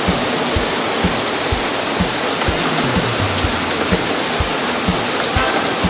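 Music with a steady beat of about two thumps a second, under a loud, even rushing hiss like heavy rain or falling water.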